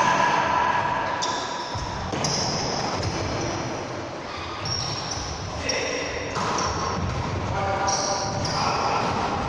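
Indoor team game in a reverberant sports hall: sneakers squeaking again and again on the court floor, a ball thudding, and players' voices.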